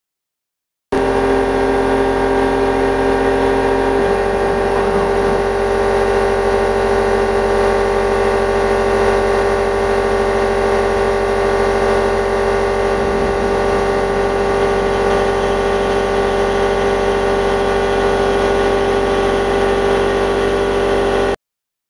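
Homemade CNC router's spindle running steadily while a small carbide end mill cuts aluminium, a steady whine with a lower tone that changes about four seconds in and again about thirteen seconds in. It starts about a second in and cuts off suddenly near the end.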